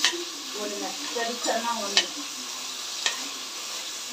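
Chopped tomatoes and onions sizzling in hot oil in a pressure cooker as they are sautéed, stirred with a perforated steel ladle. The ladle clinks sharply against the pot about four times.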